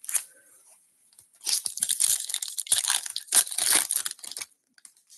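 A 2024 Topps Series 1 baseball hobby pack's wrapper being torn open and crinkled by hand. After a short tap at the start, about three seconds of crackling tearing begins about a second and a half in and stops abruptly.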